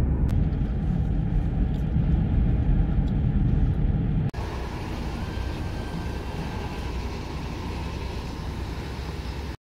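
Car cabin noise while driving: a steady low rumble of engine and tyres on the road. About four seconds in it cuts abruptly to a quieter, hissier background.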